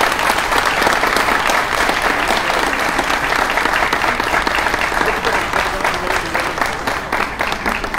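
Audience applause: many people clapping steadily, easing off slightly near the end.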